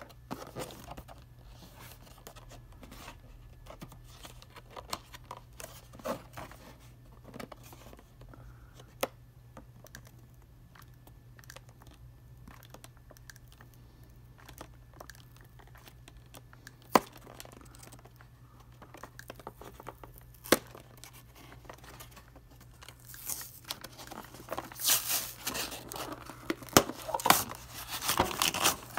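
Hands handling and opening an action figure's blister-card packaging: scattered clicks and crinkles of the clear plastic tray against the cardboard backing, turning into louder, continuous tearing and crinkling of card and plastic over the last several seconds.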